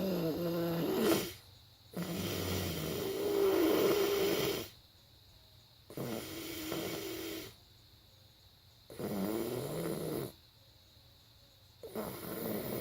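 A sleeping person snoring, one snore about every three seconds with quiet gaps between.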